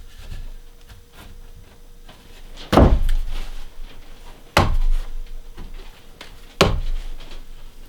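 Three heavy thuds of wood being struck, about two seconds apart, each with a short ringing decay, as the staircase framing is worked on.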